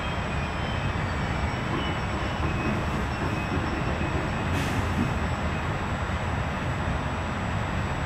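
Passenger train running slowly over the station tracks, heard from inside the carriage: a steady rumble of wheels on rail with faint high wheel squeals and a brief hiss about four and a half seconds in.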